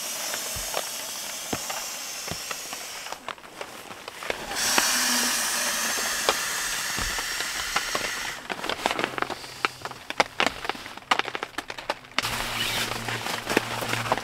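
Nylon rustling and hissing as a sleeping bag and stuff sack are handled and pulled about in a tent, in two long stretches, the second louder, followed by a run of sharp crinkles and clicks. Background music with steady low tones comes in near the end.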